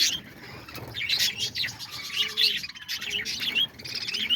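A flock of parakeets (budgerigars) chirping and chattering continuously, with many quick overlapping chirps, and a couple of faint low notes near the middle.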